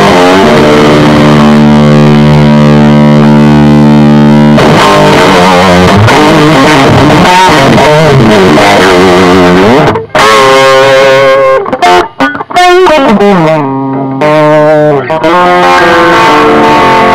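Loud distorted electric guitar played through a Rola Lead 100HW amplifier head. A held chord rings for a few seconds, then gives way to lead lines with bends and vibrato, broken by a few short stops in the second half.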